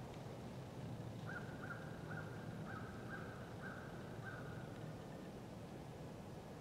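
A bird calling in a series of about seven short, faint calls, roughly two a second, over a low steady hum.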